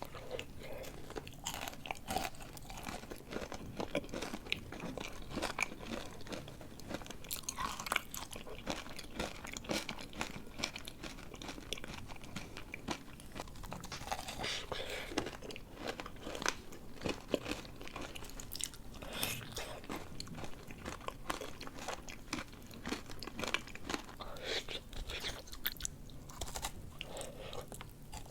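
Close-miked biting and chewing of a crunchy dessert: repeated crisp crunches and chewing clicks.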